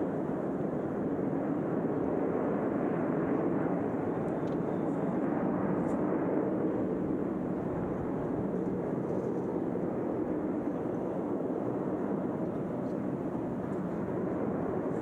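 Steady rumble of jet aircraft engines, easing a little about halfway through.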